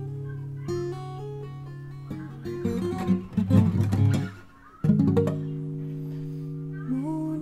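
Fender CD-140S all-mahogany dreadnought acoustic guitar played fingerstyle: held bass notes under picked melody notes, a quick flurry of strumming midway, then a chord struck and left to ring, with a few notes stepping upward near the end.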